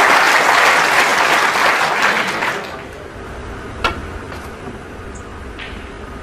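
Audience applauding, dying away after about two and a half seconds. Then a single sharp click of a cue tip striking the cue ball on a snooker table, followed by a couple of fainter ball clicks.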